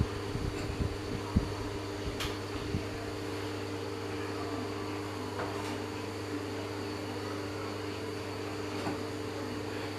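Restored old standing electric fan running, its motor giving a steady hum. A few light knocks come in the first three seconds.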